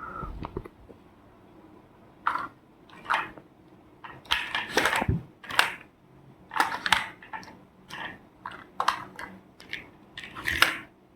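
Small plastic toys being handled, making irregular clicks, knocks and rustles, about a dozen over several seconds.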